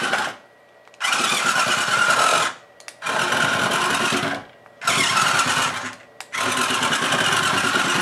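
Small electric motor and plastic gears of a remote-control toy carriage whirring as it drives, in four runs of about a second or two each with short pauses between, as the remote's buttons are pressed and released.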